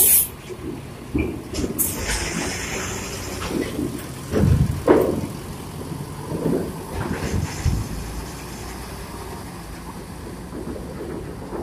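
Large vehicle engines running at the dock, a low steady rumble with a few louder swells around the middle as vehicles move.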